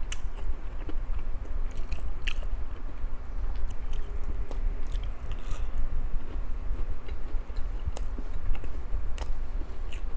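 Close-miked chewing with crisp crunches of breaded, fried pork cutlet (tonkatsu) as it is bitten into, sharp crunch clicks scattered irregularly throughout, over a faint steady low hum.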